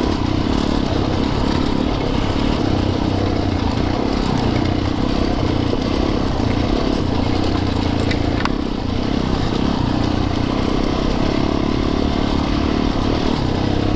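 Yamaha YZ450FX dirt bike's 450 cc single-cylinder four-stroke engine running at a fairly steady pitch while riding a trail. A couple of sharp clicks come about eight seconds in.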